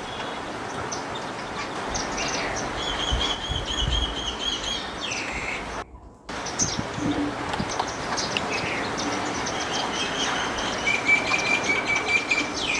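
Several garden birds chirping and calling over a constant background hiss, with rapid repeated trills and a sustained whistled note near the end. The sound drops out briefly about halfway through.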